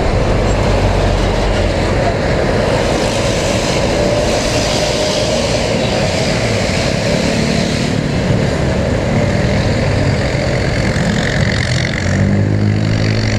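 Motorcycle running under way, with dense steady road and wind noise. Near the end a low engine note comes up clearer and rises slightly in pitch as the engine pulls harder.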